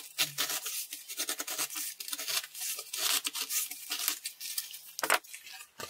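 Utility knife blade cutting along a circle through corrugated cardboard on a third pass: a fast, crackling scrape, with one sharper click near the end.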